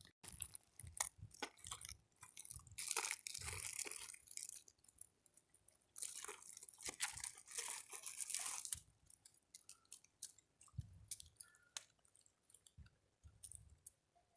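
Crinkling and rustling in irregular stretches, with scattered clicks and taps, thinning out to occasional clicks near the end.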